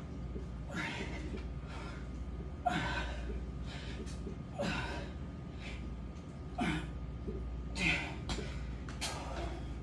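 A man breathing hard under the effort of bodyweight dips: a forceful exhale or grunt with each rep, about six in all, one every one to two seconds.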